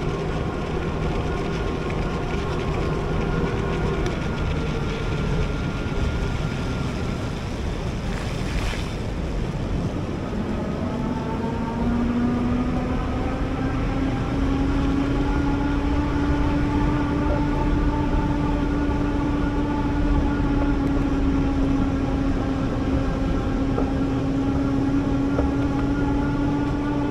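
Electric bike motor whining over a steady rushing noise. The whine fades out a few seconds in, then comes back in about 11 seconds in with a pitch that climbs a little as the bike picks up speed.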